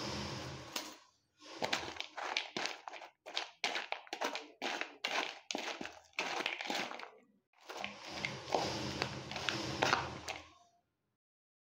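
A steel spoon tossing crunchy Kurkure corn puffs with chopped onion in a plastic bowl: rustling and crunching, with many short clicks and knocks of the spoon against the bowl. It stops shortly before the end.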